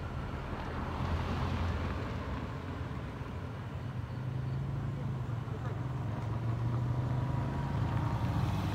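A car's engine running as it drives off along a road, a steady low hum.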